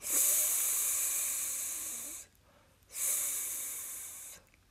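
A teacher's voice sounding out the phonics sound /s/ as a long hissing "sss", twice, the first about two seconds long and the second a little shorter.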